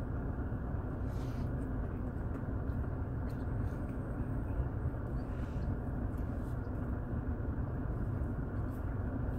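Steady low rumble of a car running, heard inside the cabin, with a few faint clicks as a man chews a mouthful of burger.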